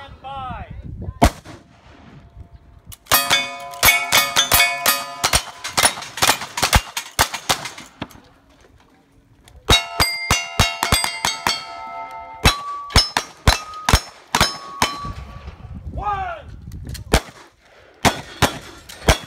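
Fast strings of gunshots in a cowboy action shooting stage, most followed by the bright ringing ding of struck steel targets. Two long strings run several seconds each with a short pause between, and a few more shots come near the end.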